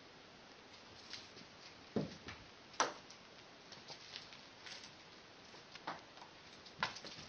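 A cat leaping and scrambling on carpet after a dangled toy: scattered soft thumps and patters of its paws. The sharpest click comes just under three seconds in, and another thump comes near the end.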